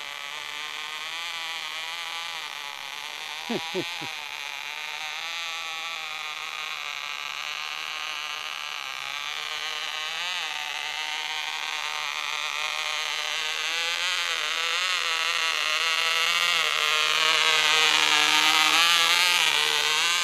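Vintage OK Cub .049 two-stroke glow engine on a radio-control glider, buzzing in flight, its pitch wavering up and down as the plane passes and growing louder toward the end as it comes closer. This is a gummed-up motor.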